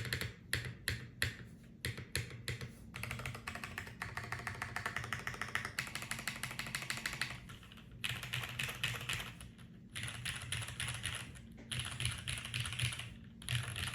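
Typing on a tenkeyless mechanical keyboard with Cherry MX Brown switches, a carbon-fibre top-mount plate and GMK keycaps. It starts with a few separate keystrokes, then fast continuous typing, then several bursts of rapid typing with short pauses between them.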